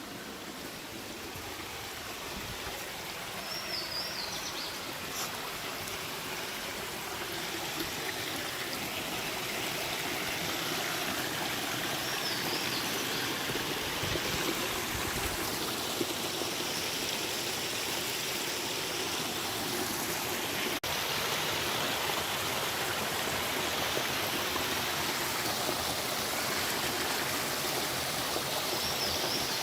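Flowing stream water rushing and trickling: a steady hiss that grows louder over the first ten seconds or so, then holds. A few brief high chirps come through it.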